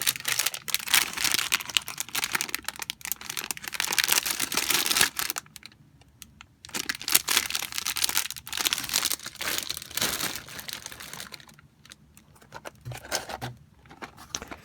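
Plastic packaging crinkling as bagged model kit parts are handled, in irregular crackly bursts with a short pause about six seconds in.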